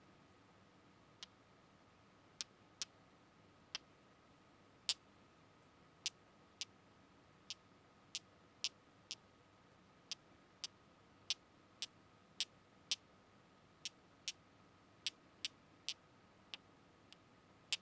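ASMR tapping: sharp, crisp taps on a hard object, irregularly spaced at roughly one or two a second, over a faint steady hum.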